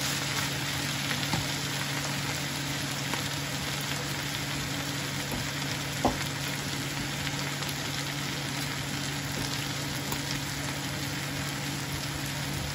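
Shredded bamboo shoots sizzling steadily in a hot frying pan over a steady low hum, with one sharp tap about six seconds in.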